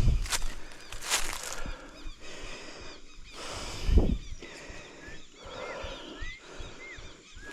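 Footsteps on a trail in the first second or so, a dull thump about four seconds in, then many short high bird chirps.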